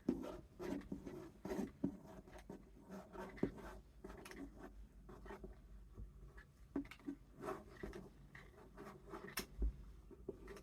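Paper and cardboard craft pieces being handled and pressed into place: irregular rustling and scraping with scattered light taps and clicks.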